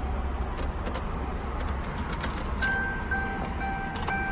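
Keys clicking against the ignition of a 2007 Ford Crown Victoria, then, a bit past halfway in, the car's electronic warning chime starts: a steady beep repeating about twice a second as the ignition is switched on before cranking.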